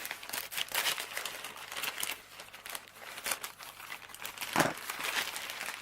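Unpadded plastic postage envelope crinkling and rustling as it is handled and opened, a dense run of irregular crackles with a louder rustle about four and a half seconds in.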